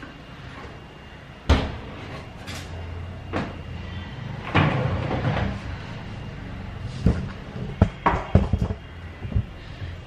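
Dishwasher door opened with a knock, then its wire racks pulled out with clattering and a run of sharp clicks near the end.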